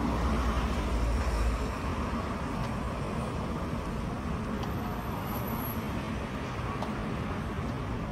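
Road traffic noise along a rain-wet street: a steady hiss of passing vehicles, with a louder low rumble during the first second and a half.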